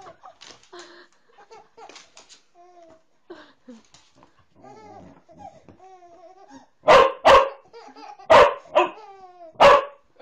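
A dog barking five sharp times in the last three seconds, after a few fainter pitched calls.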